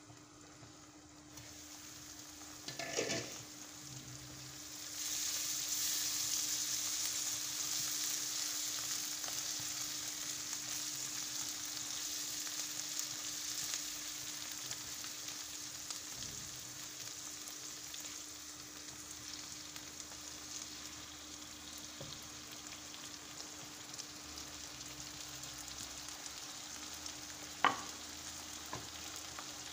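Sliced onions and green peppers sizzling in oil in a frying pan, with stirring. After a short clatter about three seconds in, the sizzle grows loud as the pan is uncovered, then slowly eases. A single sharp knock comes near the end, as diced tomatoes go into the pan.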